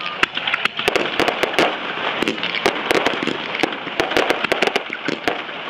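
Fireworks display: aerial shells bursting in a rapid, irregular run of sharp bangs, several a second, over a continuous noisy rumble.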